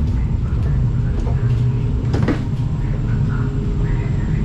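Steady low hum and rumble inside a stationary Hitachi Rock (ETR 621) regional train, with a single knock about two seconds in.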